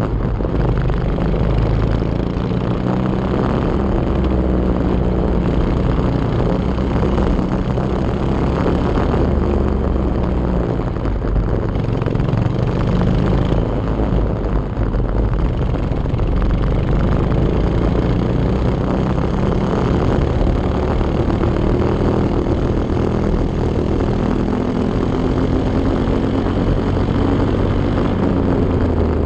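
Engine of a racing vehicle running hard around a circuit, heard close up from an onboard camera. Its note rises and falls with the throttle through the corners and climbs again near the end, over a steady rush of noise.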